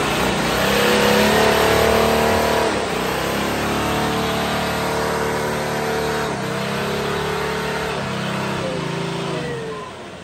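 Nissan Patrol 4x4's engine revved hard at full throttle while its tyres spin through mud, the pitch climbing, dipping and climbing again several times before the engine drops back near the end.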